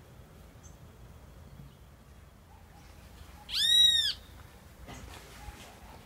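A single loud animal call about half a second long, rising then falling in pitch, over a quiet outdoor background.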